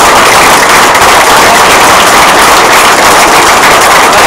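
Audience applause, steady and so loud on the recording that it is overloaded and distorted.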